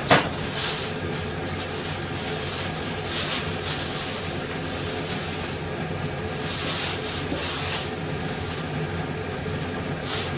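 Steady hiss and hum of a gas stove burner under a steaming pot of miso soup. A sharp click comes right at the start, and a few brief surges of higher hissing rise and fall over the following seconds.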